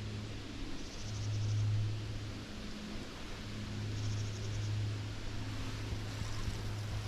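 Steady low outdoor hum, with a short high pulsing trill from a small animal, insect or bird, repeating about every three seconds.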